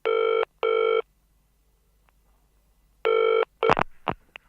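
Telephone ringing with a double ring, two short pulses, then a third pulse about three seconds in that is cut short by a run of sharp clicks as the line is picked up by the answering machine.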